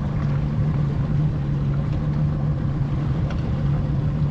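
Boat's outboard motor running with a steady, even hum as the boat moves along.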